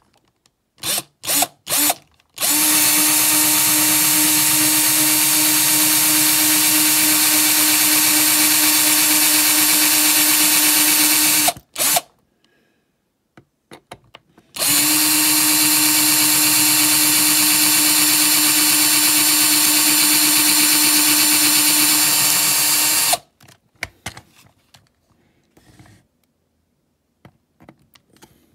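Power drill drilling out the rivets on a die-cast toy van's base. A few short blips of the trigger come first, then two long steady runs at an even pitch of about nine seconds each, then more short blips near the end.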